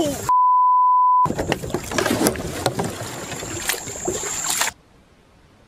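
A one-second censor bleep, a steady 1 kHz tone, then noisy splashing and knocking around a kayak as the angler goes overboard. The sound cuts off abruptly near the end.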